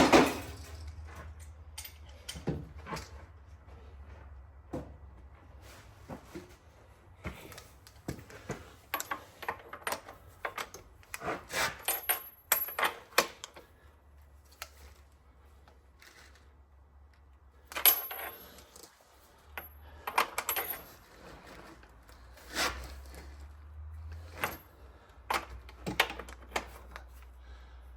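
Metal hand tools clinking and clicking on engine bolts, with sockets and wrenches set down and worked in scattered short bursts. A steady low hum runs underneath.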